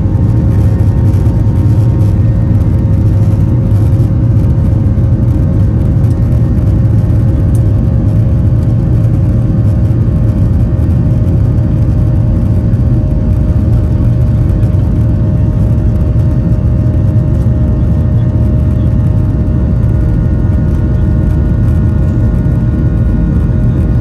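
Boeing 737-800 cabin noise: a steady low roar of the engines and airflow, with a faint constant hum above it.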